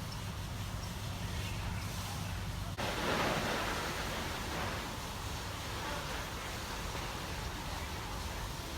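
Steady rushing noise of ocean surf and wind on the microphone. About three seconds in the sound breaks off abruptly and comes back as a louder swell that slowly eases.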